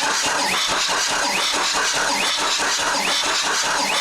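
Case 430 skid steer's Cummins four-cylinder diesel being cranked over on the starter for a compression test on cylinder 2, a steady rhythmic churning. The cylinder reads low, around 120, which points to a fault in that cylinder.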